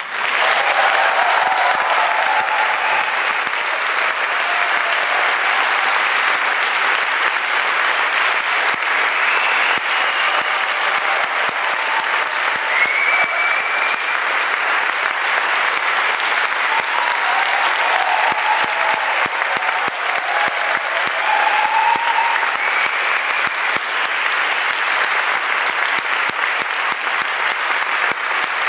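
Concert audience applauding, many hands clapping steadily.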